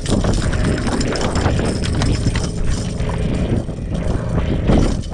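Steady low rumble aboard a small fishing boat at sea.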